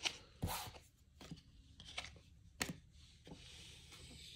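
A few soft, sharp taps with light rubbing between them: trading cards and packs being handled on a tabletop.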